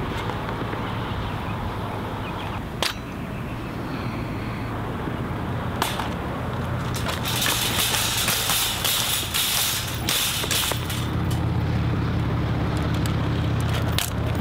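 A wire shopping cart rattling, its wheels rolling over asphalt, as it is tugged back and forth, with a couple of sharp clanks. A low steady hum sits underneath and grows louder near the end.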